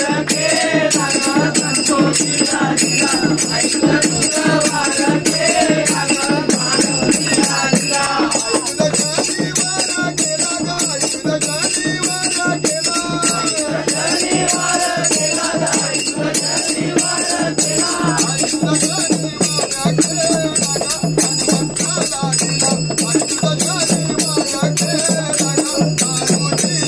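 A group of men singing a devotional bhajan together, backed by small hand percussion and a pair of hand drums keeping a fast, steady beat.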